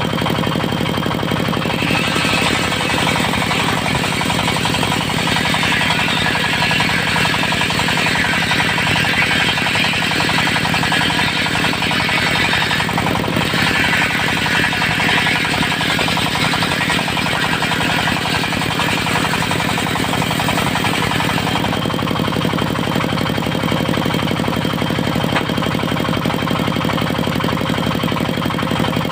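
Diesel-driven circular sawmill running steadily, its blade cutting through mahogany from about two seconds in until a little past two-thirds of the way, with a brief break partway. After the cut the engine and blade keep running free.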